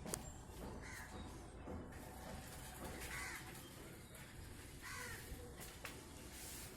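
A crow cawing, four short caws about two seconds apart, fairly faint over low background noise.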